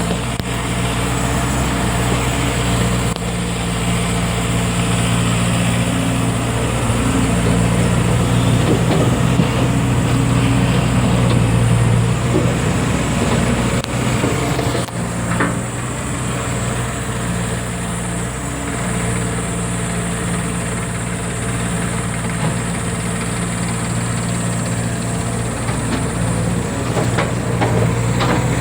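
Diesel engine of a JCB 210 excavator running steadily, with its level rising and falling slightly as it works, loudest around ten seconds in.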